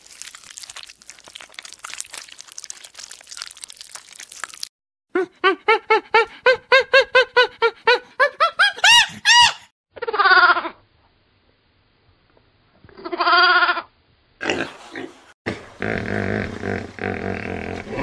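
A string of different animal calls. First a crackling noise, then a rapid run of about a dozen short calls ending in rising glides, then two wavering bleats typical of goats about ten and thirteen seconds in, and a dense mix of low calls near the end.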